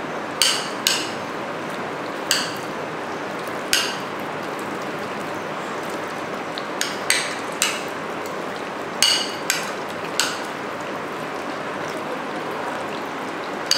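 Raw chicken pieces being mixed with marinade in a glass bowl: about a dozen scattered clinks against the glass, each ringing briefly, over a steady hiss.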